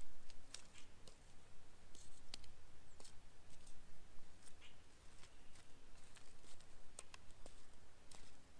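A stick poking and scraping through charcoal and ash in a stone fire pit, giving irregular sharp clicks and short scrapes several times a second.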